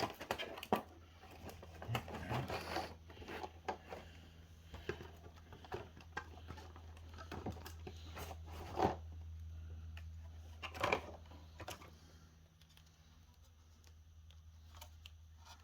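Packaging being handled during an unboxing: rustling and scraping with scattered clicks and knocks, over a steady low hum.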